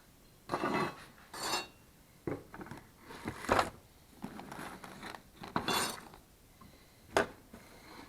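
Small metal objects being handled, giving a series of irregular clinks and clatters, with a sharp click near the end.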